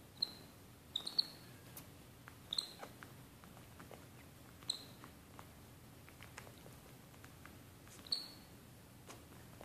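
Brief high-pitched animal squeaks, about six of them, some in quick pairs, with faint soft clicks between.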